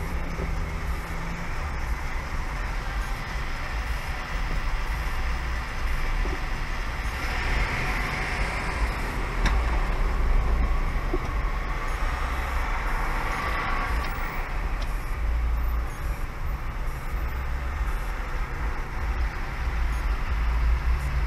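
Car cabin noise from a dashcam in slow city traffic: a steady low rumble of the engine and road with a hiss of passing traffic that swells twice, about a third and two-thirds of the way through.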